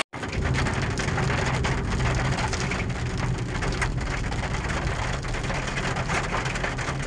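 Rain falling steadily, a dense hiss of many small drop impacts, over a low steady rumble.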